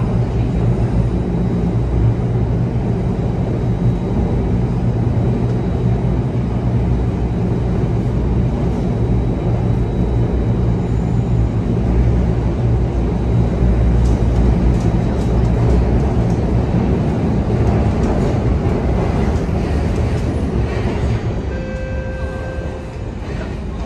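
Singapore MRT Circle Line train running between stations, heard from inside the carriage: a steady low rumble and hum from the motors and the wheels on the track. Near the end the level drops a little and a brief tone sounds.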